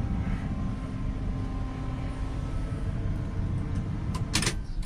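A 1979 Dodge Lil Red Express's 360 V8 idling, heard from inside the cab as a steady low drone that is not loud. A brief clatter comes near the end.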